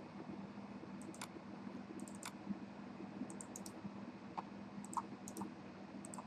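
Computer mouse clicking, short sharp clicks in several small clusters, over a faint steady hum.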